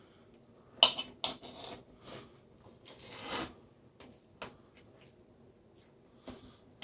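Serrated knife trimming raw chicken breast on a cutting board: a few sharp knocks about a second in, a longer cutting stroke around three seconds in, and scattered light clicks.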